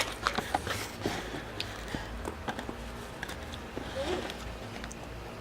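Someone biting into and chewing watermelon: a quick run of wet crunching clicks in the first second or so, then sparser ones.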